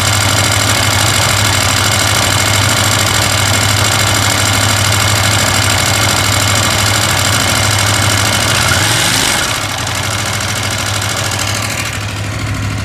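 KTM 890 Adventure R's parallel-twin engine idling steadily with a rattle that the owner questions as possibly abnormal, a rattle that gets quieter when the bike is ridden. About nine seconds in, the low engine note drops away and leaves a quieter, higher noise.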